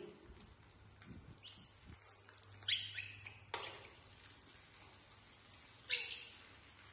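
Baby macaques giving short, shrill squeaks that fall in pitch, about five of them in clusters through the middle and one near the end, over a faint steady low hum.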